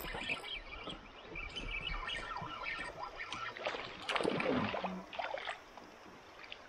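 Water splashing around a fishing kayak, mixed with scattered light knocks and clicks. The loudest splashing comes about four seconds in.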